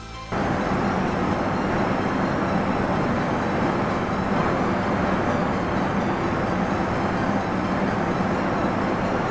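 Steady roar of a commercial kitchen stove's gas burner under a large pot of boiling soup, starting abruptly a moment in.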